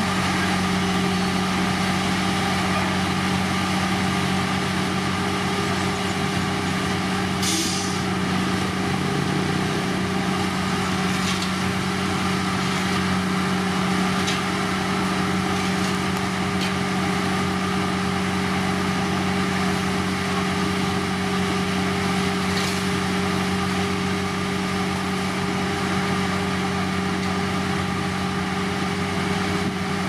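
Heavy diesel road-construction machinery running steadily at a constant engine speed. A brief hiss comes about seven seconds in, with a few faint clicks later on.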